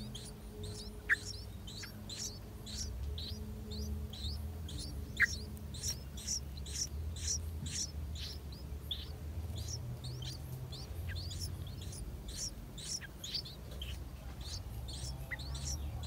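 Nestling birds begging while a parent feeds them at the nest: a rapid run of short, high-pitched chirps, several a second. Two louder, lower chirps stand out about a second and five seconds in.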